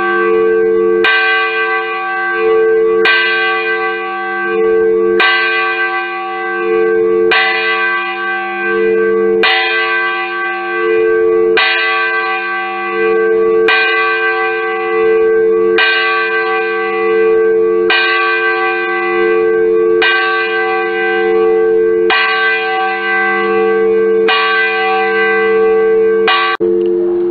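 Swinging bronze church bell rung steadily, its clapper striking about once every two seconds. Each stroke rings on into the next under a steady low hum.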